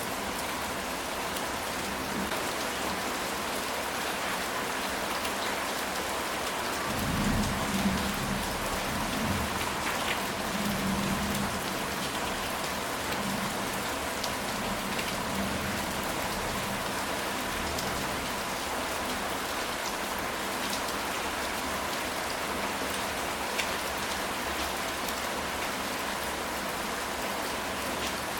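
Steady rain falling on a ceramic tile roof, a dense hiss flecked with single drop ticks. About seven seconds in, a low rumble of thunder swells and fades away over several seconds.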